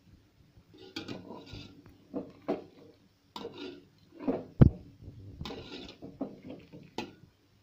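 A spoon stirring a wet vegetable curry in a metal pot, scraping and clinking irregularly against the pot's sides and bottom. One sharper, louder knock comes a little past halfway.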